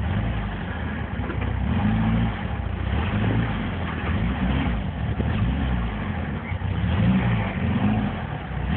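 Apal buggy's engine pulling under acceleration while driven, heard from inside the open car through a phone microphone; the revs rise and drop back several times.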